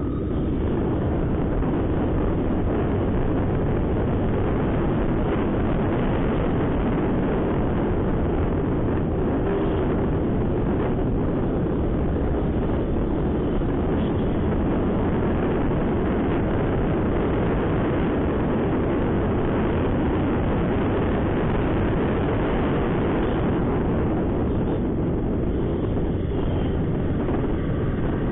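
Steady wind rush on the microphone over a Honda SP125's single-cylinder engine running, as the motorcycle rides at speed through traffic.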